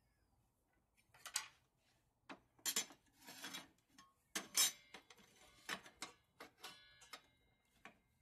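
A series of irregular clicks, knocks and short scrapes, about a dozen spread unevenly, with a brief ringing clink about seven seconds in.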